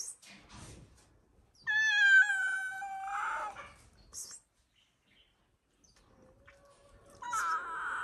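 An animal calling: one long, drawn-out call, falling slightly in pitch, about two seconds in, and a shorter call near the end.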